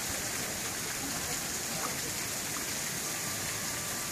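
Steady hiss of water running and splashing into an outdoor pool, with faint voices in the background.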